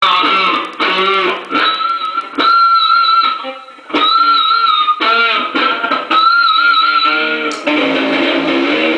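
Heavily distorted electric guitar played as noisy grind: choppy phrases of warbling high tones broken by short gaps, turning into a denser, lower, continuous wall of sound near the end.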